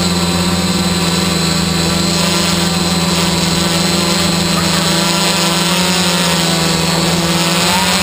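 Multicopter camera drone's motors and propellers running at a steady, loud hum, with a slight rise in pitch near the end.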